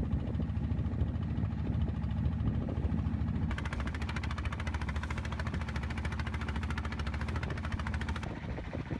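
Small fishing boat's engine running steadily underway with a fast, even beat. From about a third of the way in, the hiss of foaming wake water rushing along the hull joins it for several seconds, then drops away near the end.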